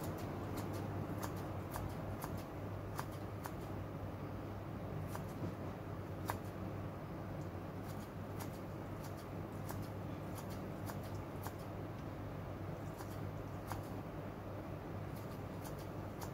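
Kitchen scissors snipping cooked seafood into small pieces: many quick, irregular clicks of the blades closing, over a steady low hum.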